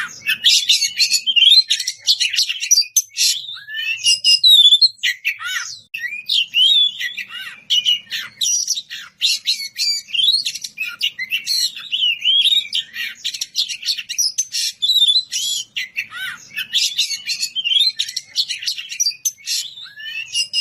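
Oriental magpie-robin (kacer) singing non-stop in full voice: a loud, varied stream of clear whistles, rapid chattering notes and sweeping glides with hardly a pause, the sustained song of a bird in top singing form.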